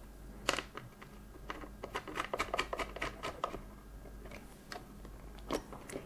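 Small clicks and scrapes of threaded metal standoffs being screwed in by hand into a CPU cooler's back plate through a motherboard: a quick cluster of ticks in the middle, with single clicks near the start and near the end.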